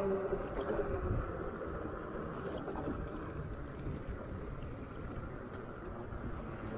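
Wind buffeting the microphone and tyre noise as an electric bike rides on pavement. A whine falling in pitch, the motor winding down, fades out in the first second.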